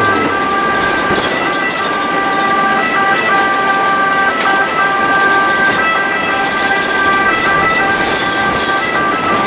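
Ambulance siren sounding continuously, switching back and forth between two pitches, heard from inside the cab.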